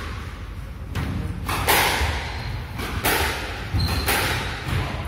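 Squash rally: the ball struck by rackets and smacking off the court walls, a sharp strike about every second, each with a short echo.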